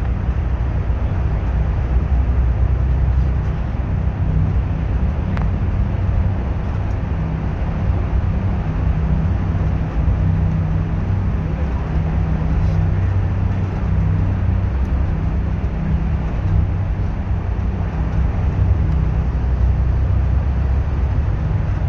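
A bus running steadily: an even, continuous low engine drone with road and tyre noise over it.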